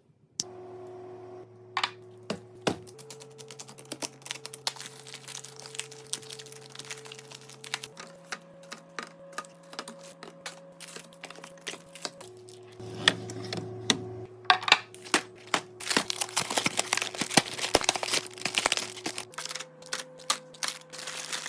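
Many sharp clicks, taps and crinkles of plastic containers and packaging being handled and set into a fridge, with a denser crackling stretch near the end. Soft background music holds sustained chords underneath.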